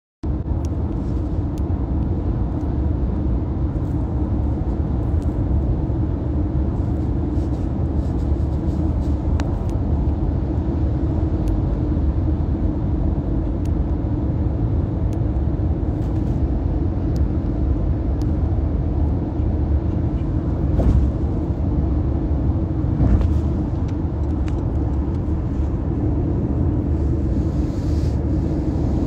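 Steady low rumble of a car on the road, heard from inside the cabin, with a couple of small bumps about two-thirds of the way through.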